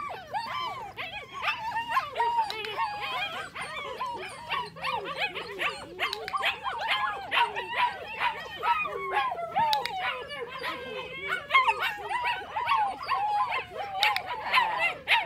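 Eight-week-old puppies whining and yipping without pause, many short high cries overlapping one another as if from several pups at once.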